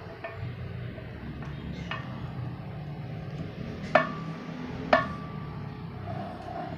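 Steel yoke and universal-joint cross of a truck propeller shaft clinking against each other as they are handled by hand during a cross-joint replacement: a few light taps, then two sharp metallic clinks about a second apart with a brief ring.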